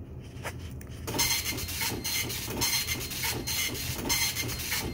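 Old office printer running, a rhythmic rasping of about two or three strokes a second that starts about a second in, over a steady low hum.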